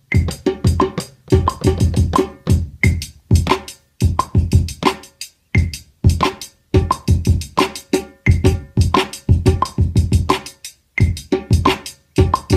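Drum-machine beat from a Battery 4 drum kit triggered on Maschine pads: a repeating pattern of deep kick-drum hits and short sharp percussion hits, with a few brief breaks.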